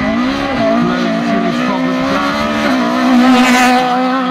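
Toyota rally car's 1600cc four-cylinder engine revving hard and held at high rpm as it drives up the course, its pitch wavering only slightly. A short rushing hiss rises over it near the end.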